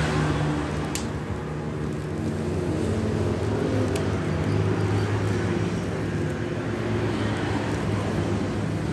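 A steady low mechanical hum, like a motor running, under a few sharp clicks and light rustling as a plastic courier mailer is slit open with a blade.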